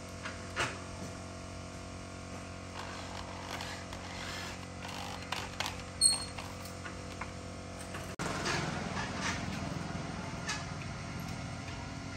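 Light clicks and knocks of metal parts being handled on an aluminium window frame, over a steady background hum, with one sharp louder click about six seconds in. About eight seconds in the sound breaks off and gives way to a denser noise.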